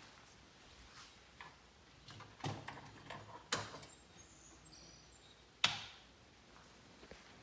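Quiet footsteps and handling knocks, a few scattered clicks with the sharpest one about five and a half seconds in.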